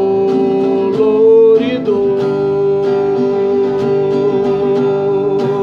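A man singing one long held note, rising briefly about a second in and then settling back, over a strummed acoustic guitar.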